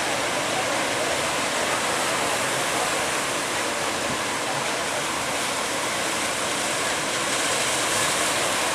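Steady rushing noise of large waves breaking, continuous and unchanging, with no single crash standing out.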